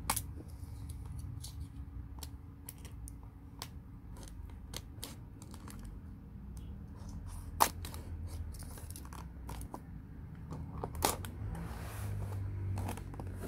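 Cutting open the seal tape on a cardboard laptop carton with a utility knife: scattered small clicks and scrapes, with a sharp snap about seven and a half seconds in and another about eleven seconds in.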